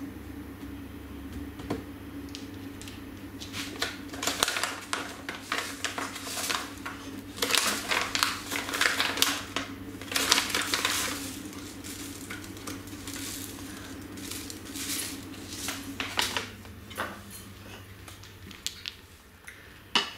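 Kitchen utensils and bowls being handled, with irregular clattering and knocking in bursts through the middle, over a low steady hum.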